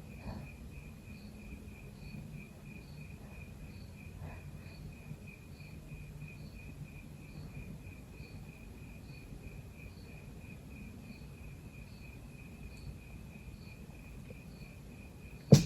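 Crickets chirping steadily at about four chirps a second over a faint low hum. Right at the end comes one sudden, short, loud burst.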